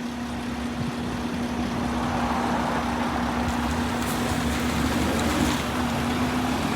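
Road traffic noise: vehicle engines and tyres rumble steadily under one constant low drone. No horn sounds.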